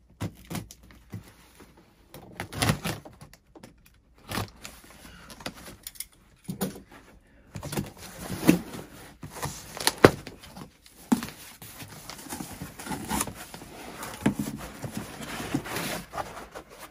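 Cardboard shipping box being unpacked: a box cutter slitting the packing tape, then the cardboard flaps pulled open and a foam packing block lifted out, with irregular scraping, rustling and sharp knocks.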